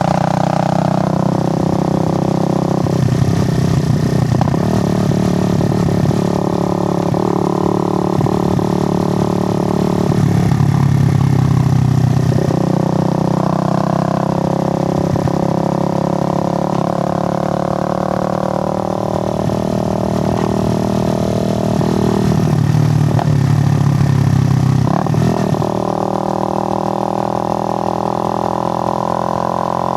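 Suzuki GN125 motorcycle's single-cylinder four-stroke engine running steadily, its note dropping and climbing again several times: a few seconds in, around ten seconds in, and again past twenty seconds.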